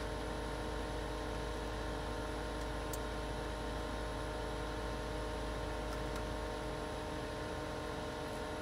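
Steady hum with several constant tones from a running 2021 Mercedes-Benz GLC300, heard inside the cabin. A faint click comes about three seconds in and another about six seconds in.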